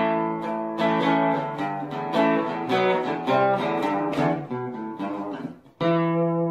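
Guitar music, likely acoustic: notes picked one after another, then a brief drop and a final chord struck near the end that rings on.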